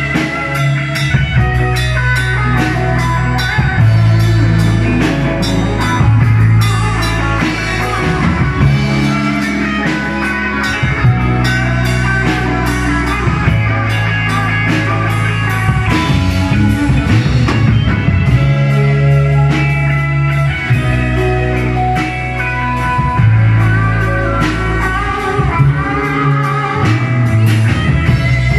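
Rock music with electric guitar over held bass notes and a drum kit keeping a steady beat, loud throughout.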